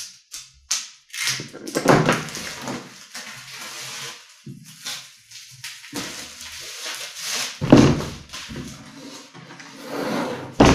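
Plastic shrink wrap crinkling as it is slit with a utility knife and pulled off a cardboard board-game box, a continuous rustle full of small crackles. A couple of low thuds come from the box being handled, one near the end as it is turned over.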